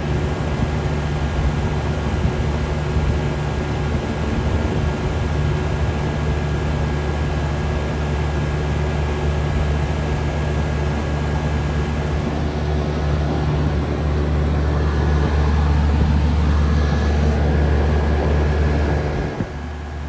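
Vintage 1980 Lennox HS9 central air conditioner outdoor unit running: a steady low hum from the compressor under the rushing air of the condenser fan. The sound grows slightly louder in the later part, then drops down a step about a second before the end.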